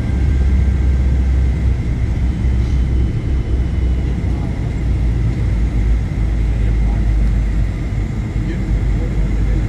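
Steady low rumble of an airliner cabin in flight, from engine and airflow noise.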